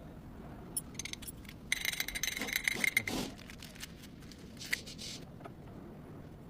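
Metallic clicks and clinks, with a dense rattling burst carrying a ringing tone for about a second and a half about two seconds in, then a single click near the end.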